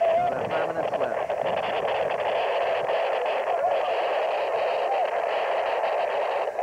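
Steady babble of many voices from spectators and players, with an occasional shout standing out.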